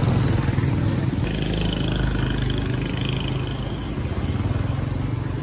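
Motorbike engine running steadily at low revs.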